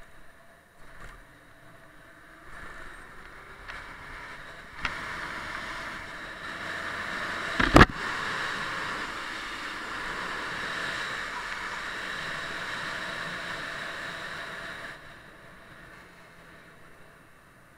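Wind rushing over the camera microphone on a moving motorcycle, with the engine faint beneath it. The rush swells a few seconds in and falls away near the end. A single sharp knock comes about eight seconds in.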